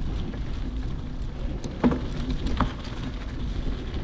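Wind buffeting the microphone over the low rumble of a mountain bike rolling along a dirt trail. Two short knocks come about two seconds in, the first the louder, as the bike rattles over bumps.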